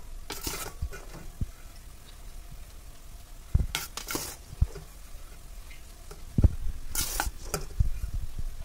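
Slotted metal spoon scooping cooked long-grain rice and spreading it in a metal pot: a few short scraping, rustling strokes with soft knocks against the pot.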